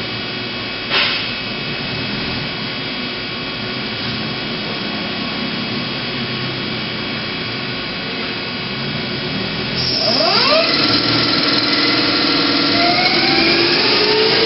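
Mazak QT20N CNC lathe running with a steady machine hum and whine, and a brief clunk about a second in. About ten seconds in the spindle spins up in second gear: a whine rises quickly and levels off, and the machine grows louder.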